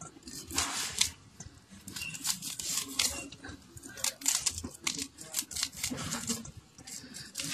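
Fresh maize kernels being scraped off the cob with a metal utensil: a quick, irregular run of short crunchy scrapes, with loose kernels dropping into a stainless steel bowl.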